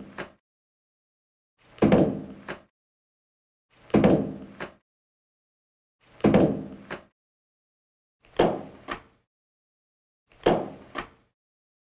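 A heavy knock or thud with a short ringing tail, followed about half a second later by a lighter sharp click, repeated evenly about every two seconds, five times, with dead silence between.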